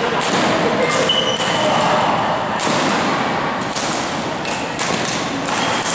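Badminton rackets striking a shuttlecock in a rally, a string of sharp hits, with sneakers squeaking briefly on the court floor, echoing in a large gym hall.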